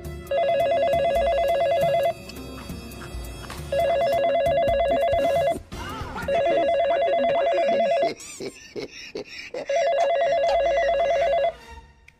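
Mobile phone ringing with a trilling electronic ring: four rings of about two seconds each, with pauses of about a second and a half between them.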